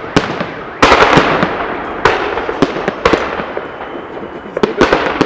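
Aerial fireworks salute: a string of sharp bangs as shells burst, each followed by a fading crackle, the loudest about a second in and a quick cluster near the end.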